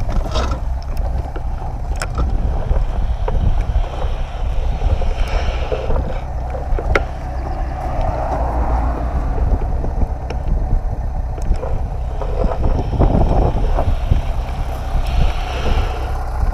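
BMW R 1200 GS boxer-twin engine idling steadily in neutral, with wind buffeting the microphone.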